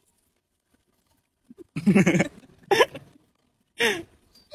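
A man's voice making a few short non-speech vocal sounds: four brief bursts after about a second and a half of near silence.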